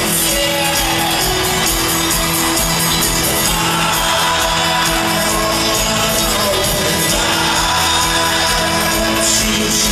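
A live folk-rock band plays an instrumental passage with banjo, acoustic guitar, upright bass and a trumpet-and-trombone brass section, heard from within an arena crowd. Audience voices shout and sing along over the music.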